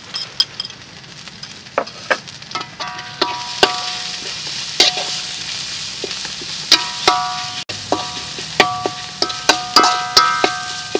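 A metal spatula stirring crab in a hot pan, knocking against the pan again and again so that the metal briefly rings after each strike. Under it runs a steady sizzle of the crab frying with curry powder. The knocks come more often in the second half.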